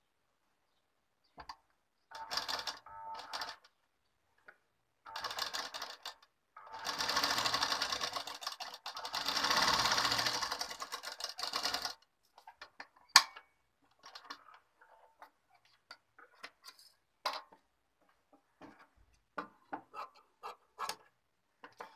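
Domestic sewing machine stitching through layered blouse fabric in a few short runs, then one longer continuous run of about five seconds. After that come scattered sharp clicks and snips as scissors trim the fabric.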